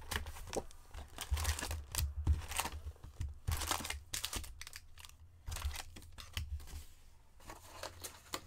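Plastic and foil wrapping of a box of hockey trading card packs crinkling and tearing in irregular bursts as the box and its packs are torn open by hand.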